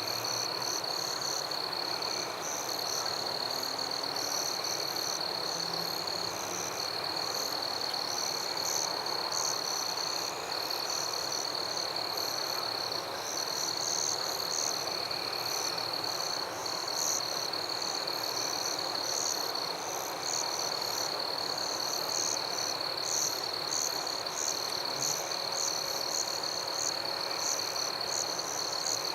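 Night chorus of frogs calling over a steady, high-pitched insect trill, with rapid high chirps pulsing on top.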